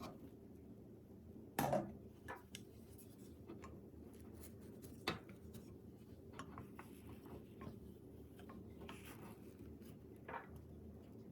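Light kitchen handling sounds: a knock of cookware or a utensil about 1.5 seconds in, then scattered soft clicks and scrapes, with single sharper clicks near the middle and near the end, over a faint steady hum.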